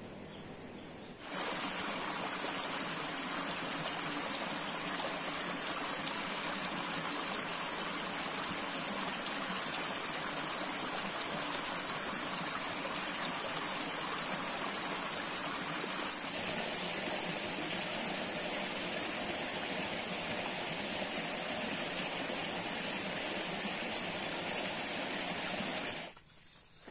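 Steady rushing of a stream: a dense, even wash of water noise with a high hiss on top. It starts suddenly about a second in and cuts off suddenly near the end.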